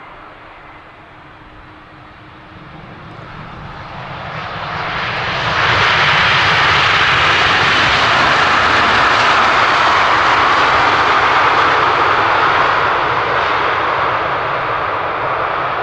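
Wide-body jet airliner passing close on its landing approach: the jet engine noise swells over a few seconds, stays loud for about eight seconds, then slowly fades.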